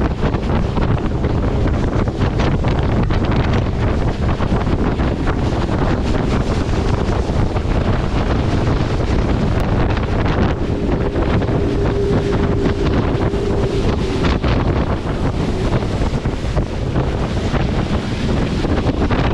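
Motorboat running at speed on open water: a steady, noisy rush of engine, hull and water, with heavy wind buffeting the microphone. A faint steady tone is held briefly a little past the middle.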